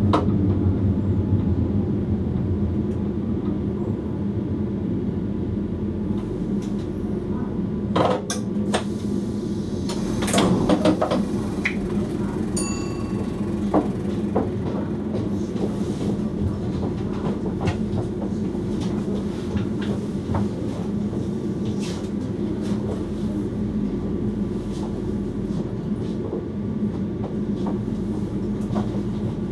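Electric passenger train running, heard from inside the driver's cab: a steady motor and running hum with scattered clicks from the wheels and track. A few louder knocks come around the middle, followed shortly by a brief beep.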